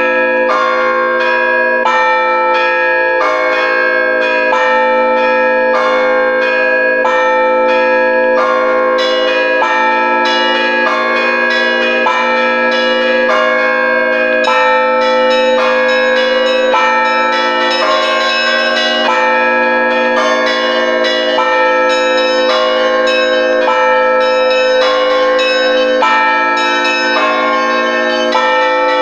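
Russian Orthodox church bells rung all together in a full peal (trezvon) for vespers: quick, even strikes of the smaller bells over the sustained hum of the larger bells.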